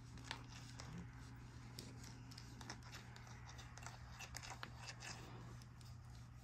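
Faint scratching, rustling and small clicks as a cat grapples with and bites a wooden back scratcher, its claws and fur rubbing against it, over a low steady hum.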